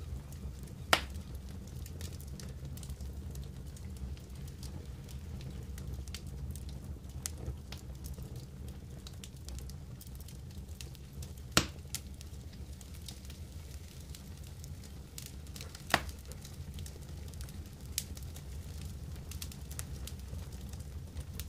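Wood campfire of a smouldering log and coals crackling softly, with four sharp pops standing out over a steady low rumble.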